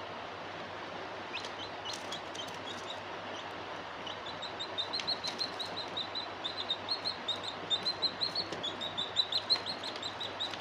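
Newly hatched chick peeping: a run of short, high chirps, sparse at first and then faster and louder from about halfway through, over a steady background hiss.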